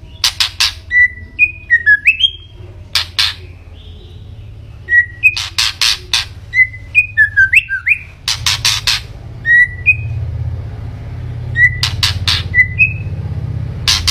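White-rumped shama singing: short clear whistled notes with quick rising and falling slurs, alternating with clusters of sharp, harsh clicking notes. A steady low hum runs underneath.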